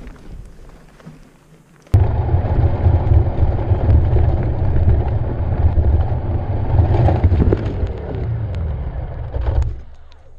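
Ducati enduro motorcycle being ridden over desert dirt: a loud, steady rumble of engine and riding noise that starts abruptly about two seconds in and drops away near the end as the bike goes down on its side.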